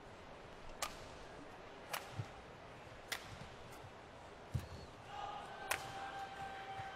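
Badminton rally: racket strokes on the shuttlecock crack about once a second, with a few dull thuds of players' footwork on the court. A long, steady tone sets in about five seconds in.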